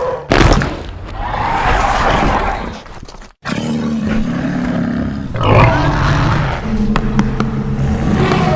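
Custom Indoraptor (fictional dinosaur) sound effects: a sharp roar, then a long roar, and after a brief cut, a low drawn-out growl with a louder roar rising out of it partway through.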